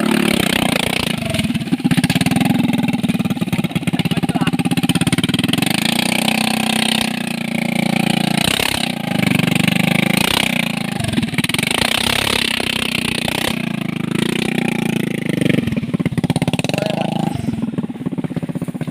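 A vehicle engine revving up and easing off over and over, its pitch rising and falling every few seconds, with a steady hiss above it.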